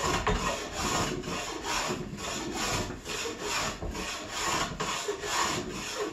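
Hand tool smoothing the face of a softwood timber in quick back-and-forth strokes, about two a second, each a brief scraping rasp on the wood. It is finish smoothing, taking out a small dent in the surface.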